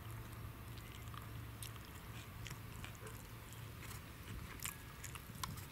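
Quiet ambience: a steady low rumble with a handful of faint, scattered clicks and ticks from small objects being handled.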